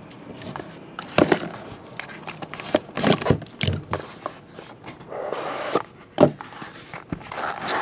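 A cardboard trading-card box being unsealed and opened by hand: rustling and scraping, with several sharp knocks and clicks, the strongest about six seconds in, as the small black inner box is handled.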